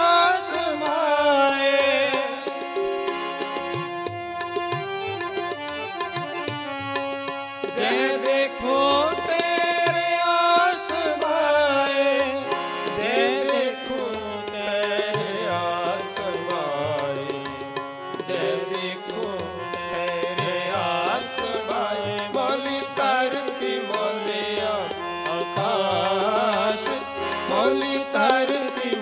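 Gurbani kirtan: devotional singing accompanied by two Nagi harmoniums and tabla, played continuously with steady tabla strokes under the gliding vocal line.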